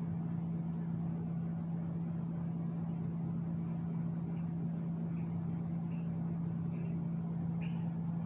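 Steady low hum of a room air conditioner running, one even drone with no change. A few faint short sounds come through it in the second half.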